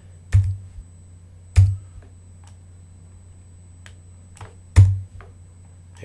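A few sharp keystrokes on a computer keyboard: three loud clicks with a dull thump, about a third of a second, a second and a half and nearly five seconds in, with fainter taps between, over a steady low hum.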